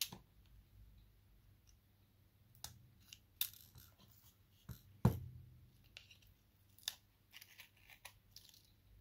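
Scattered small clicks, taps and short scrapes of hand tools and parts being handled on a smartphone during repair, with one louder knock about five seconds in.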